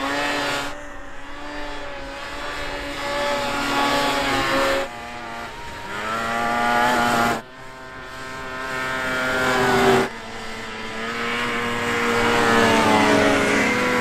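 Racing snowmobiles passing one after another at speed, each engine's whine swelling as it comes by and bending in pitch as it passes. Several short passes follow each other, with the sound cutting off abruptly between them.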